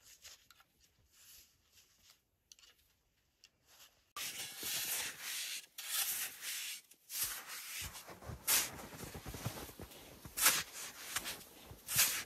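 Snow shovel digging into deep snow, crunching and scraping as the blade cuts in and lifts. Faint for the first few seconds, then much louder from about four seconds in, with several sharp strokes.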